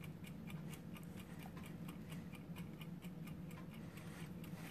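Faint, rapid, regular ticking, about five ticks a second, over a low steady hum.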